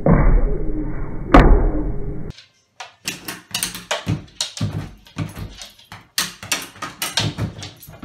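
A single loud bang about a second and a half in. Then a fast, uneven run of sharp clacks, two or three a second: a dog's pet-door flap knocking back and forth as the dog noses at it.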